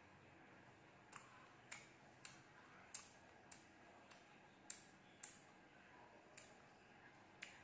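Crisp raw fruit being chewed with the mouth closed: about ten faint, sharp crunches at irregular intervals.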